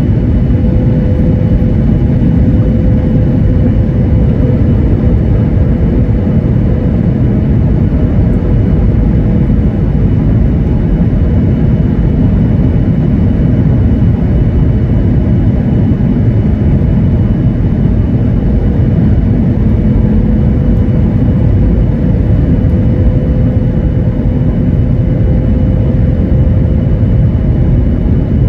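Airliner cabin noise on approach: the turbofan engines and rushing airflow make a loud, steady noise, with a faint steady hum running through it.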